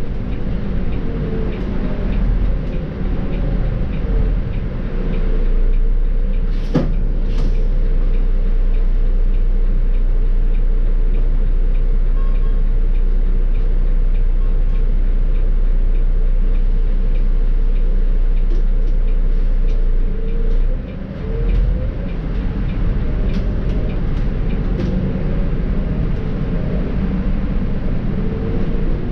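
Volvo B7R city bus under way: a steady rumble of its diesel engine and road noise. Two sharp clicks come about seven seconds in. Around twenty seconds in the sound dips briefly, then the engine note rises again as the automatic gearbox pulls through the gears.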